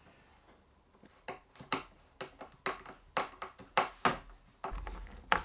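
Hand screwdriver driving a screw into a snowshoe ski's binding plate: a run of sharp clicks, about two a second, as the screwdriver is turned stroke by stroke. A low hum comes in near the end.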